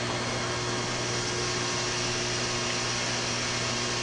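Homemade HHO electrolysis cell of stainless steel plates in baking-soda water, running at about 20 amps: a steady fizzing hiss from the gas bubbles, growing a little brighter after about a second as the foam builds. A low electrical hum runs underneath.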